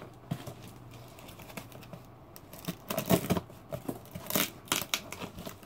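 Parcel tape being torn and peeled off a cardboard package: a run of crackling rips in the second half, after a quieter start.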